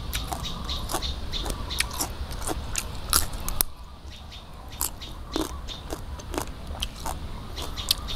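Close-up crunching and chewing of crisp raw pea eggplants, quick sharp crunches one after another with a short lull about four seconds in.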